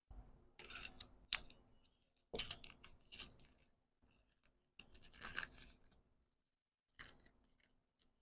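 Close-miked hand packing sounds: four short bursts of rustling and scraping with sharp clicks, the loudest click a little over a second in.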